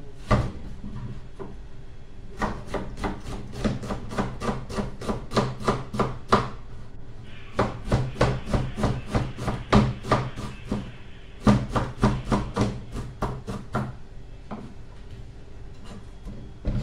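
Knife chopping on a cutting board in quick, even strokes, about three to four a second, in several runs with short pauses between them.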